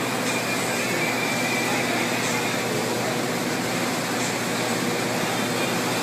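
A baler running: steady mechanical noise with faint high ticks about every two seconds.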